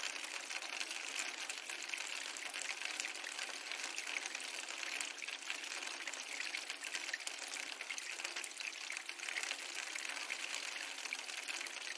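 Layered rain, ocean and fireplace ambience: an even, steady rushing hiss dotted with many fine crackles.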